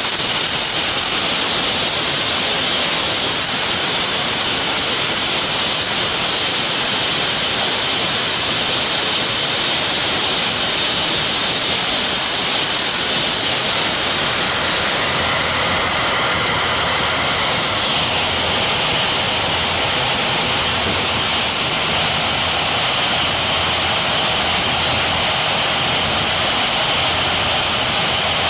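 Engine room din of CRM 18D/SS 18-cylinder marine diesel engines running: a loud, steady roar with several high, steady turbocharger whines over it.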